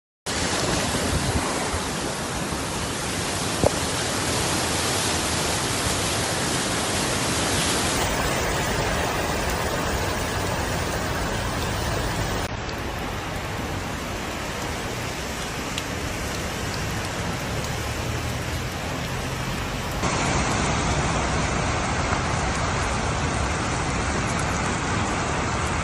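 Steady rushing noise of heavy rain and running floodwater, changing abruptly three times as separate recordings are joined. There is one sharp click about four seconds in.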